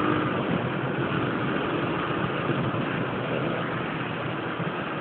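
Yamaha Factor 125 motorcycle riding at a steady pace: its single-cylinder engine running under a steady rush of road and wind noise.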